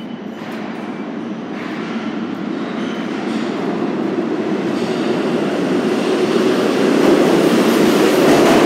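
An Alstom-built R160A subway train enters the station, and its rumble of wheels on rail grows steadily louder as it draws alongside the platform.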